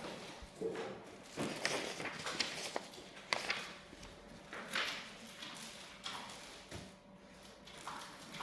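Irregular light knocks, clicks and rustling at a few moments, with no steady sound between them.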